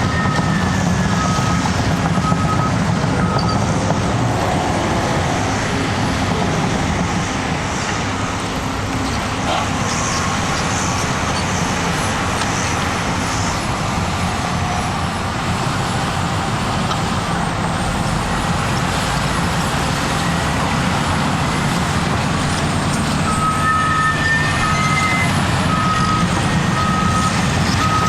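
Cat D6T bulldozer's diesel engine running steadily under load. Its reverse alarm beeps for the first few seconds and again near the end, as the dozer backs up.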